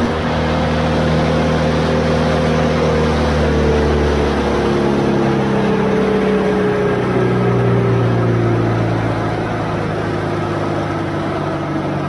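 Morbark wood chipper's engine running at working speed, then winding down from about four seconds in, its pitch falling steadily as it is throttled back toward idle.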